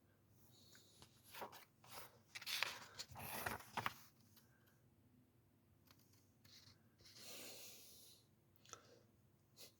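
Paper comic book being handled, its pages rustling: a cluster of short rustles in the first few seconds and a longer one near the end.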